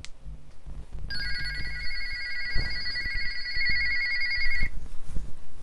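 Midland G9 Plus PMR446 walkie-talkie sounding its electronic call tone: a warbling ring that starts about a second in and stops after about three and a half seconds.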